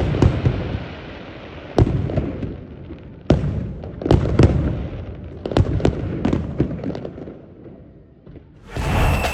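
Fireworks display: aerial shells bursting in a string of sharp bangs, about one to two a second, each trailing off in a low rumble and crackle. It thins out shortly before music starts near the end.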